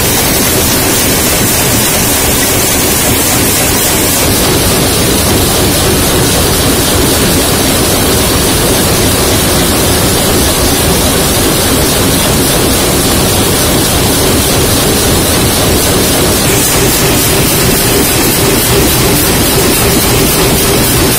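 Loud, steady din of aluminium can production-line machinery: a dense mechanical roar with a faint steady hum underneath.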